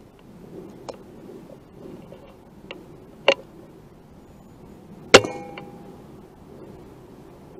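Brocock BRK Ghost PCP air rifle firing at rats: a sharp crack about three seconds in, then a louder shot about five seconds in with a brief metallic ring after it. Fainter clicks come in between.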